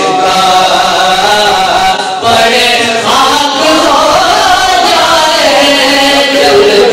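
A group of men chanting an Urdu na'at in unison: a lead voice joined by a chorus of young men, sustained and melismatic, with a brief breath break about two seconds in.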